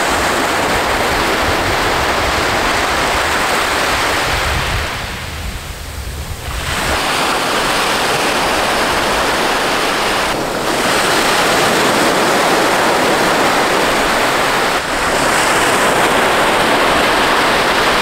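Small waves breaking and washing up a sandy beach: a steady rush of surf that eases briefly about five seconds in.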